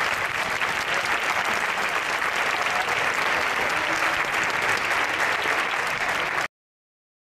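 Large grandstand crowd applauding steadily, cutting off abruptly about six and a half seconds in.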